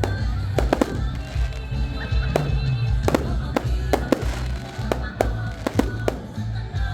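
Fireworks bursting in a rapid, irregular series of sharp bangs, over loud music with a heavy bass.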